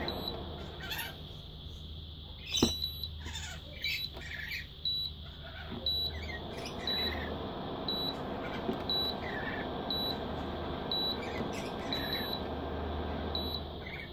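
Induction cooker sounding its error alarm: short high beeps repeating about once a second over a steady low hum, a sign the cooker is refusing to run. A sharp click comes about two and a half seconds in.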